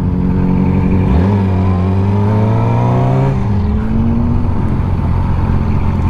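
Motorcycle engine under way, its pitch rising about a second in, holding, then falling away about three and a half seconds in, over a steady rushing noise.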